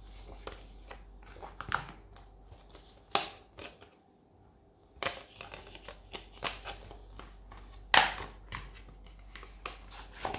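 Hands handling plastic disc cases and a paper booklet: scattered clicks and knocks with paper rustling, the loudest knock about eight seconds in.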